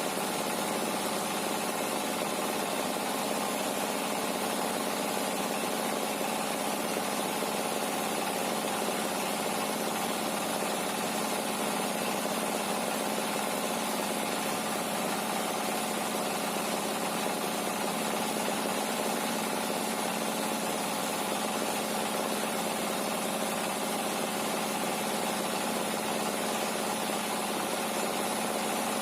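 Sawmill machinery running at a steady pace: a constant engine-like drone with no change in pitch or load.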